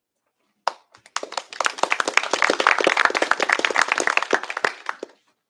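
Audience clapping in a small room: a single clap about a second in, then a few seconds of steady applause that fades out near the end.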